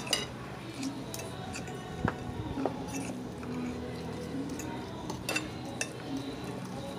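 Knife and fork scraping and clinking against a plate as food is mixed, with a few sharp clicks spread through.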